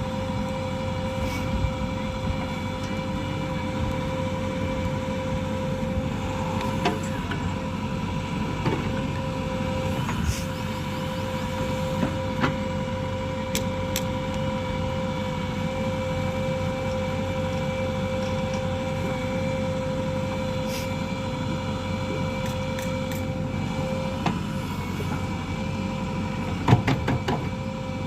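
JCB 3DX backhoe loader's diesel engine running steadily under a steady high whine, with occasional sharp metallic knocks, the loudest near the end.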